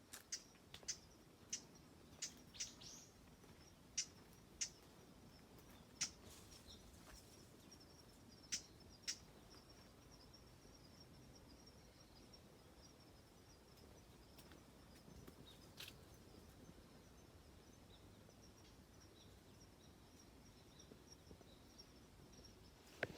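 Faint outdoor forest ambience: a steady, thin high-pitched chirring, with short sharp chirps or ticks scattered through the first nine seconds and a couple more later.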